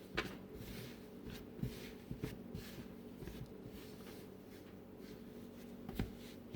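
Bread dough being kneaded by hand on a work surface: faint pressing and rubbing with a few light knocks, the sharpest near the start and about six seconds in.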